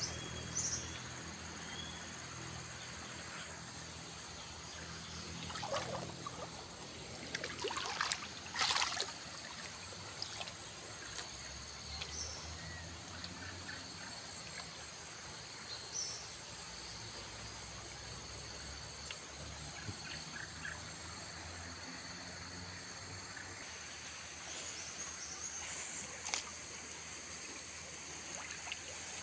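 Swollen, muddy river flowing steadily, with insects chirring high over the water sound. A spell of close rustling and knocks comes about six to nine seconds in.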